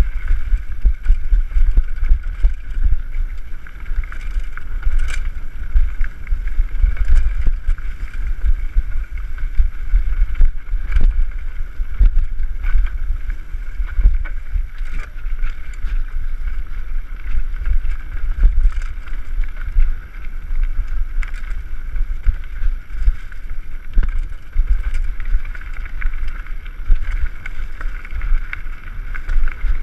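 Wind buffeting the microphone of a camera riding on a mountain bike during a fast descent of a dirt trail: a continuous low rumble, with small knocks and rattles from bumps in the trail.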